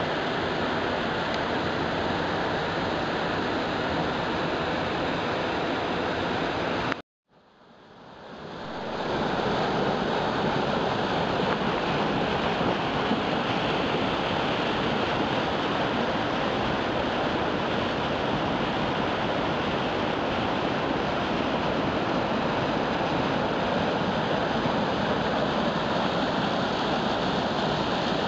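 Steady rushing of water from a rocky mountain stream's cascades and waterfall. It cuts off suddenly about seven seconds in and fades back up over a couple of seconds.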